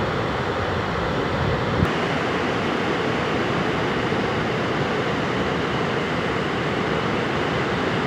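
Steady wind buffeting the microphone over the rush of surf breaking on the beach, with a faint click about two seconds in.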